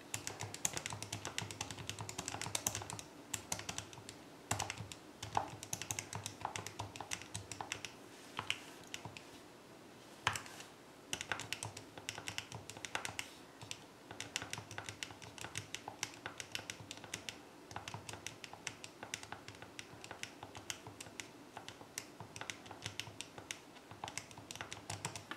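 Buttons of a Texas Instruments TI-84 Plus graphing calculator being pressed in quick succession while numbers are keyed in: a run of clicks, several a second, with a few brief pauses.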